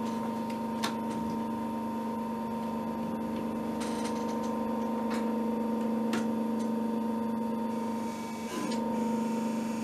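Electric motor of a Pfaff 335 industrial binding sewing machine running with a steady hum while the machine is not yet stitching, with a few separate clicks.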